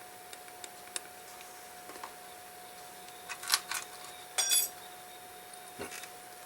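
Small metal clicks and clinks as watchmaker's tools and tiny screws touch the pocket-watch movement and bench, with a brighter ringing clink about four and a half seconds in, over a faint steady hum.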